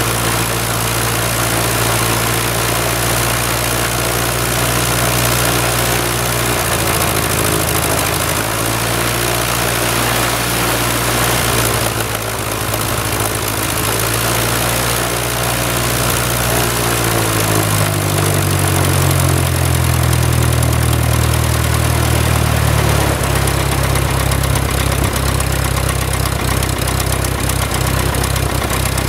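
Cessna 172M's four-cylinder Lycoming O-320 aircraft engine running uncowled with the propeller turning, in its first run after ten years unused. It runs steadily, then the revs rise somewhat about two-thirds of the way through before dropping back.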